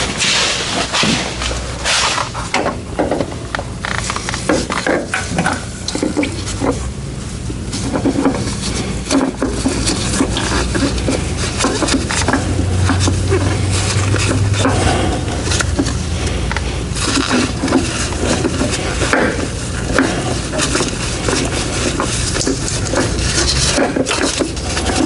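Irregular clinks, knocks and scrapes of gloved hands working on metal parts around the fuel filter in the John Deere 5075E tractor's engine bay, over a steady low hum.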